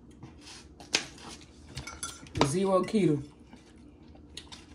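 Metal fork clinking and scraping against a plate as noodles are scooped up, with a sharp click about a second in.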